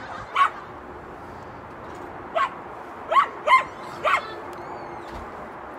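Boykin spaniel giving about five short, high barks and yips, spaced out with gaps of up to two seconds.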